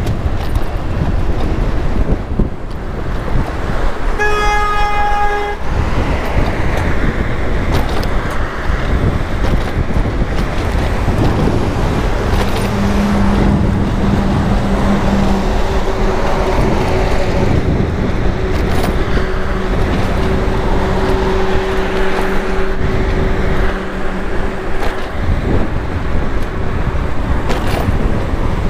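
Road traffic and wind rumble heard while riding an e-bike on city streets, with a single car horn honk lasting about a second and a half about four seconds in. A steady low drone from a vehicle runs through the middle for about twelve seconds.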